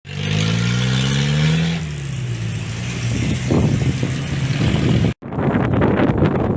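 An engine revving up, its pitch rising for the first couple of seconds, then running on steadily with a low rumble. It cuts out abruptly near the end and gives way to wind buffeting the microphone.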